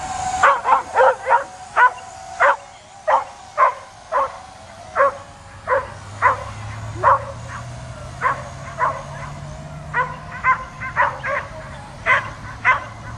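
A dog barking over and over at a flying drone, sharp single barks in quick runs of two or three a second with short pauses between. The drone's propeller whine sounds faintly underneath.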